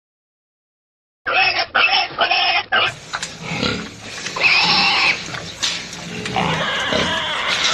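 Pigs grunting and squealing. After about a second of silence come a few short separate calls, then a denser run of overlapping squeals and grunts.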